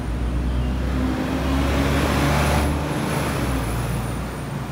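A car driving past on the road, engine and tyre noise swelling to a peak about halfway and then fading.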